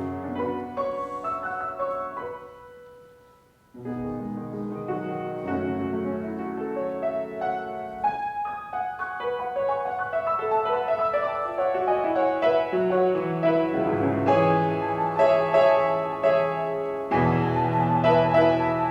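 Piano music. The notes die away to a brief near-silent pause about three seconds in, then the playing starts again and grows fuller and louder.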